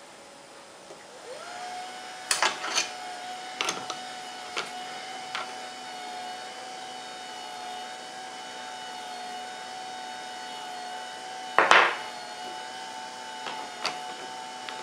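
A small electric motor winds up with a brief rising whine and then runs with a steady hum, while sharp metal knocks and clinks come from handling the lathe's three-jaw chuck: the finished piece is taken out and a new one is pushed into the jaws. The loudest knock comes near the end.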